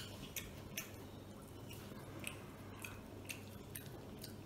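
Faint chewing of a mouthful of mutton biryani: scattered small wet clicks over a low steady hum.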